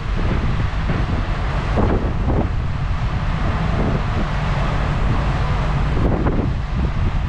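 Wind buffeting the microphone aboard a moving ferry: a steady, heavy low rumble with a rushing hiss over it.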